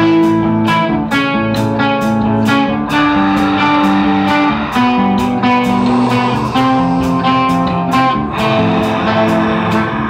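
Live rock band playing an instrumental passage: amplified electric guitars holding sustained, changing notes over a drum kit, with regular cymbal strikes about twice a second.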